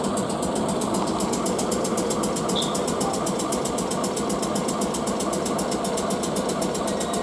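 Class 455 electric multiple unit standing at the platform, its onboard equipment running with a steady mechanical hum and a fast, even pulsing beat just before it departs.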